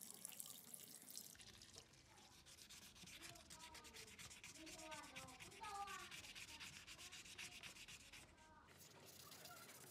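A small part of a model excavator being sanded by hand: quick, scratchy back-and-forth rubbing strokes. A brief hiss of running water and brushing comes just before the sanding starts.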